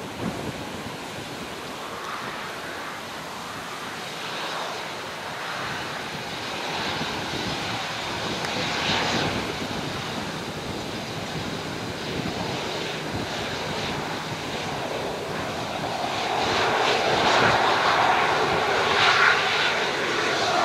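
Boeing 737-500's CFM56-3 turbofan engines running at low power as the airliner rolls out and taxis off the runway. The steady jet rush swells in the last few seconds, with a faint whine on top, as the plane turns close by.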